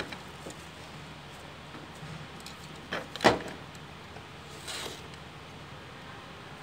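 Hard plastic fuel filter assembly parts handled on a worktop: a double knock about three seconds in, the loudest sound, and a short softer scrape near five seconds, over a faint steady hum.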